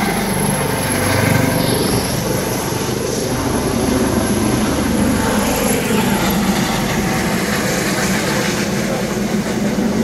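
Steady turbine and rotor noise of a twin-engine Eurocopter AS365 Dauphin helicopter lifting off and climbing away.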